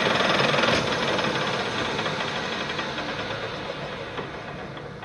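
Metal lathe running with an alternator rotor spinning in the chuck and a cutting tool on its copper slip rings, while the rings are machined down. About a second in, the steady machine noise starts to fade and keeps getting quieter as the lathe coasts down.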